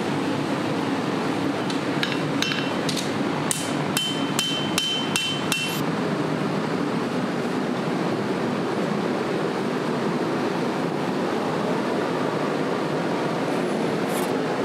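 A hammer striking the hot 80CrV2 steel of a chef's knife blade: about a dozen quick blows within four seconds, the later ones ringing. After that there is only a steady rushing noise from the running forge, with one more knock near the end.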